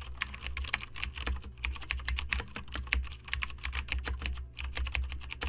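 Computer keyboard typing sound effect: rapid, uneven key clicks over a low steady hum, accompanying text being typed out. It cuts off abruptly at the end.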